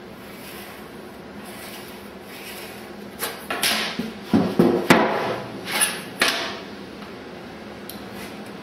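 A pencil scratching faintly along a line on a wooden paddle blank, then a steel rule being slid and repositioned on the wood: a handful of scrapes and clunks between about three and six and a half seconds in, loudest near the middle.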